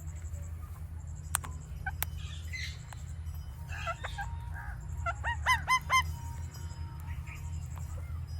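Indian ringneck parrot clicking and chattering softly, then giving a quick run of about four loud, arching calls around five and a half seconds in. A steady low hum runs underneath.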